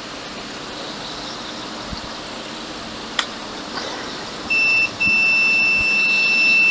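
Multimeter continuity beeper sounding a steady high tone on a MacBook Air logic board's PPVBAT_G3H charging line to ground: a short beep about four and a half seconds in, then a continuous tone from about five seconds on. The unbroken beep is the sign of very low resistance to ground, a short on the line. A light click comes about three seconds in.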